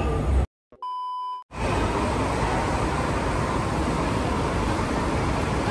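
A short single beep in a brief dropout near the start, then steady rolling noise of a loaded luggage trolley's wheels on a tiled floor, over the hum of a large hall.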